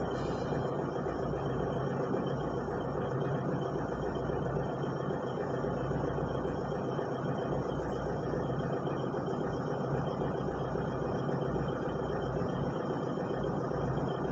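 Excavator engine running steadily at an even pitch and level.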